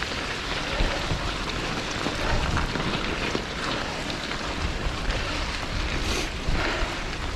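Gravel bike rolling over a wet trail: a steady hiss of tyres on wet gravel and water, with low gusts of wind buffeting the microphone and scattered small ticks.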